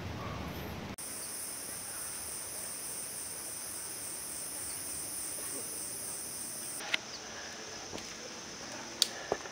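High-pitched insect chorus, a shrill, evenly pulsing drone that starts suddenly about a second in and cuts off about seven seconds in. A few faint clicks follow near the end.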